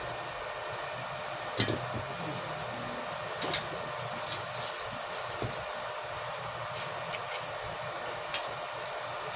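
Electric arc welding: a steady crackling hiss from the arc, with a few sharp metallic clicks scattered through it.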